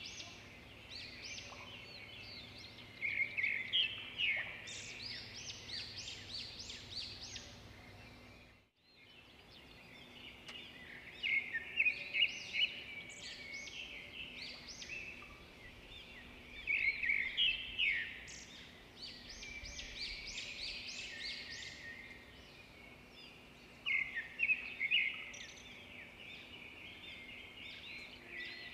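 Many small birds chirping and twittering together in a dense chorus, rising in busier bursts every few seconds. The sound cuts out for a moment about nine seconds in.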